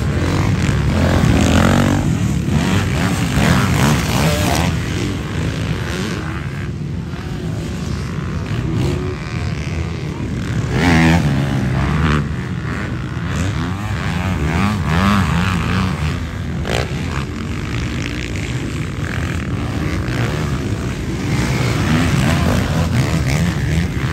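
Several motocross dirt bike engines revving up and dropping off as the bikes ride through a rutted practice track, their pitch rising and falling over and over.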